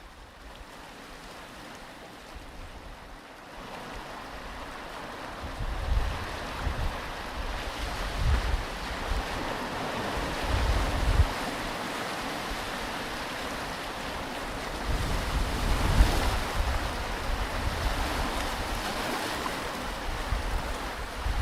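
Ocean surf washing onto a beach, its hiss swelling and fading as waves come in. Gusts of wind buffet the microphone with an uneven low rumble.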